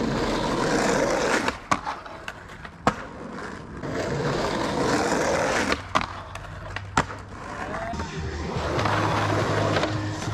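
Skateboard wheels rolling over rough asphalt, broken by several sharp clacks as the board pops up onto and comes off a concrete ledge, with trucks scraping the ledge between.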